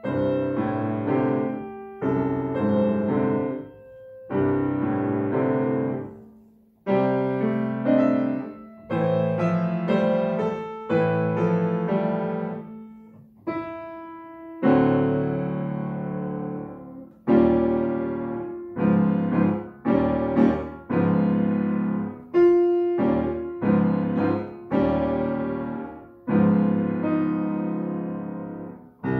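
Solo grand piano played: a series of chords and short phrases, each struck loudly and left to die away, with brief breaks between them.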